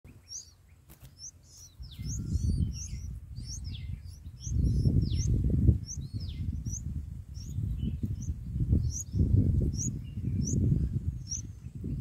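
Bulbul nestlings begging with short, high chirps repeated about twice a second, with a few downward-sliding calls in the first few seconds. Bursts of low rumble come and go underneath and are louder than the chirps.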